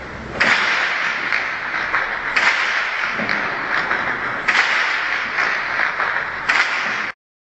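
Shelling explosions: four sudden loud blasts about two seconds apart, each followed by a long rushing echo.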